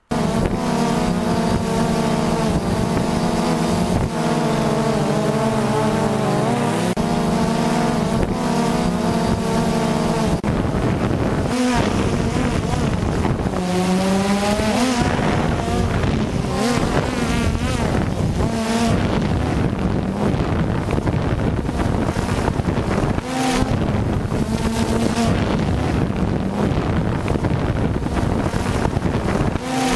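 Multirotor drone's motors and propellers buzzing in flight, the pitch shifting up and down as it manoeuvres, with a clear rising whine about halfway through.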